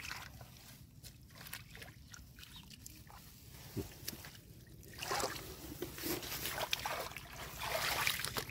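Shallow muddy water in a rice field sloshing and splashing as hands grope through it, in irregular bursts that get louder in the second half.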